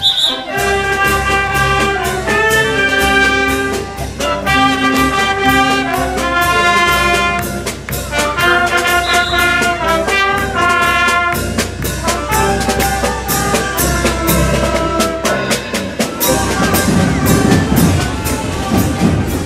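Street brass band playing a lively march tune: sousaphone, trumpet, saxophone and clarinet over a steady bass drum beat. About three seconds before the end the band's tune fades and the noise of a crowd takes over.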